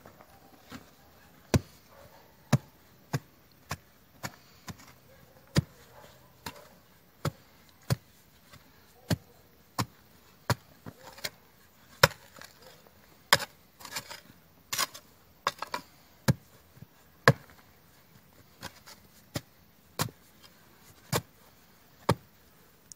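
Small grub hoe (enxadão) chopping into compacted red clay in a footing hole, a long run of sharp strikes, about one to two a second and unevenly spaced, breaking the soil into clods.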